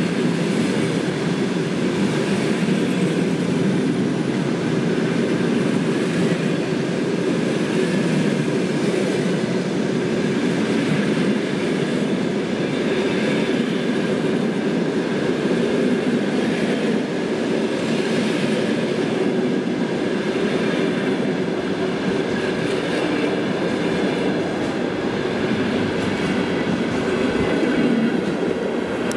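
Passenger coaches of a fast train rolling past at speed: a steady, loud noise of steel wheels running on the rails, with no break, until the last coach goes by at the very end.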